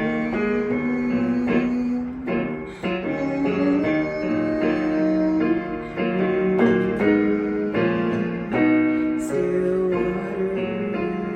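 Instrumental passage of a worship song, led by piano playing chords that change every second or so.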